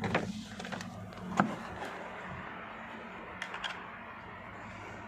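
A few sharp clicks and knocks of a screwdriver and hands against a car's plastic interior trim, the loudest about a second and a half in and a quick pair near the end, over a low steady hum.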